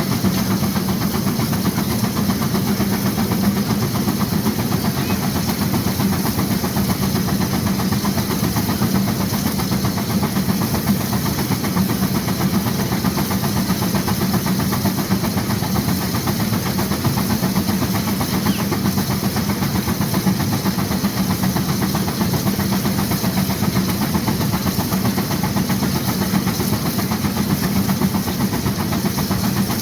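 1916 Case 40 HP steam traction engine working hard against a Baker fan, its exhaust beating fast and steadily over a continuous hiss of steam.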